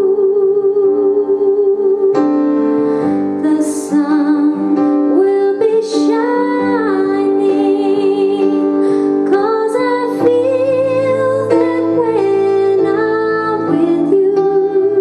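A woman singing a slow song with vibrato on her held notes, accompanied by piano.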